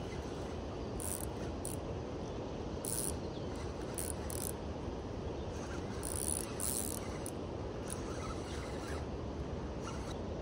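Steady rush of river rapids, with short, irregular bursts of ratcheting clicks from a fishing reel while a hooked fish is being fought.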